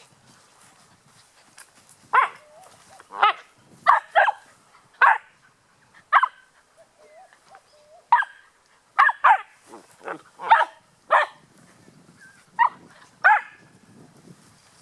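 Puppies squabbling: a dozen or so short, sharp, high-pitched barks and yaps at irregular intervals, with quieter low growly sounds between them in the later part.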